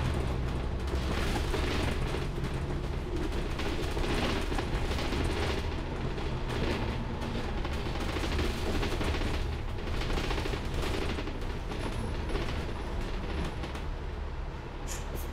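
Interior of a moving city bus: a steady low engine drone with constant rattling and creaking from the bodywork and fittings.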